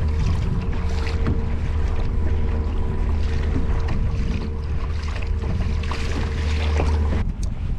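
Small electric motor driving a kayak, humming steadily with a low drone and a higher whine, over wind on the microphone and water sloshing against the hull; the motor cuts off about seven seconds in.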